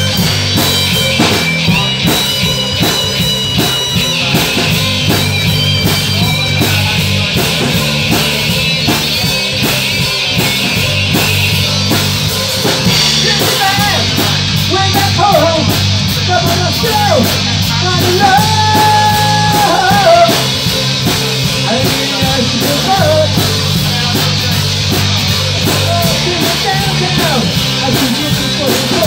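Live rock band playing with distorted electric guitars, bass and a drum kit, at a steady loud level. About halfway through a lead line with pitch bends and one long held note comes to the front.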